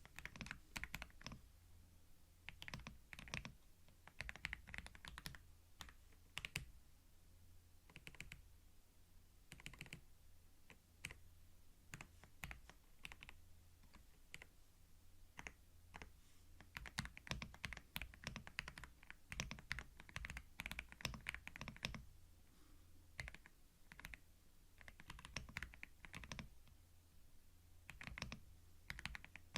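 Typing on a computer keyboard: quick runs of key clicks in bursts separated by short pauses, recorded close up for binaural ASMR.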